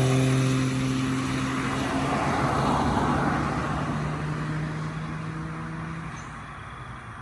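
Turbocharged Perodua Kancil engine running at steady revs with a held note that sinks slightly in pitch and fades, as the car moves away.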